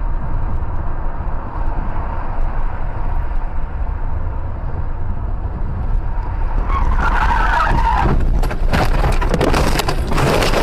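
Car driving with steady road noise and low rumble. About seven seconds in, tyres squeal briefly, and then comes a collision: a rapid series of loud impacts and clatter.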